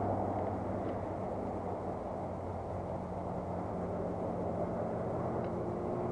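Wind blowing on the microphone, a steady low rumble, with a faint low engine-like hum underneath that shifts in pitch.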